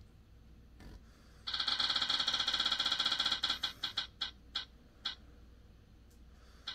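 A phone's spin-the-wheel app ticking as its wheel spins, heard through the phone's speaker. Rapid clicks start about a second and a half in, then slow to single ticks spaced further and further apart as the wheel comes to rest.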